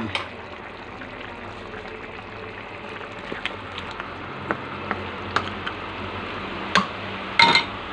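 Tomato-sauce menudo stew simmering in a wok with a steady bubbling hiss. Scattered sharp clicks and knocks come from a wooden spatula stirring against the pan, the loudest two near the end.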